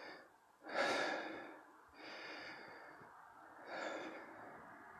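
A man breathing hard as he recovers from a 30-second bout of mountain climbers: several deep breaths, the loudest about a second in.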